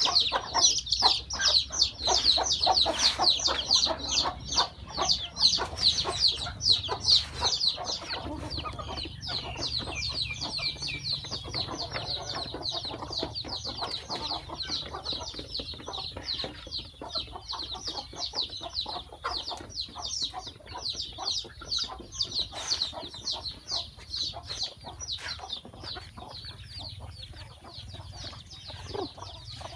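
Chickens: many chicks peeping in rapid high chirps, several a second, with a hen clucking lower beneath them. The peeping is loudest for the first eight seconds or so, then goes on fainter.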